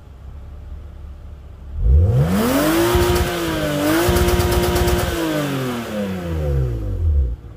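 BMW E36 engine revved from idle, climbing steeply to high revs about two seconds in, held there for roughly three seconds with a brief dip, then let fall back toward idle. It is running with its ECU-tuned rev limit raised to about 7100 rpm. The sound cuts off abruptly near the end.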